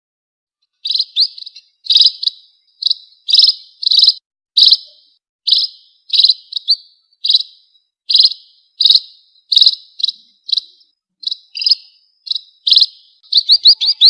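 Munia (Lonchura finch) giving short, high chirping calls, one or two a second and sometimes in quick pairs, starting about a second in and coming faster near the end. It is a lure call used to draw wild munias in.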